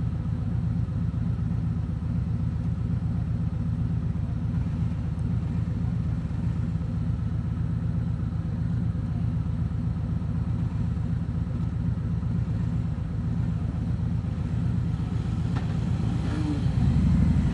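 Harley-Davidson Road King Special's V-twin engine running steadily under way, a low pulsing rumble picked up from the rider's helmet, growing a little louder near the end.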